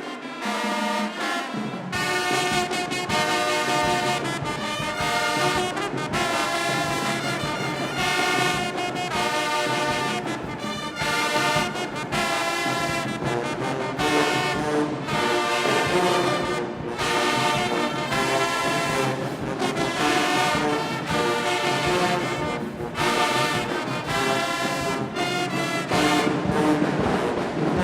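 Marching band brass section playing loud sustained chords, with trombones and trumpets prominent.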